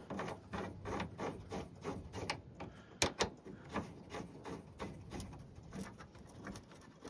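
Many small metal clicks and ticks, several a second and unevenly spaced, with two louder clicks about three seconds in, as a tailgate latch bolt is being started into its hole.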